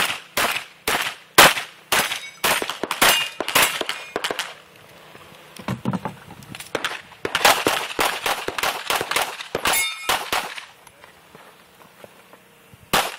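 Rapid string of shotgun shots, roughly two a second, with some hits ringing off steel targets. After a short break a second fast string of shots follows, then firing stops for a couple of seconds.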